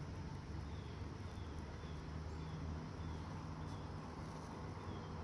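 Outdoor ambience: a steady low rumble with faint, short, high-pitched chirps repeating about twice a second.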